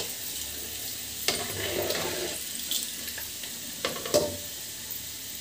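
Split moong dal frying in hot oil with a steady sizzle, the foaming nearly over, as the fried dal is scooped out. A few sharp knocks of the scoop against the pan come through, the clearest about a second in and again near four seconds.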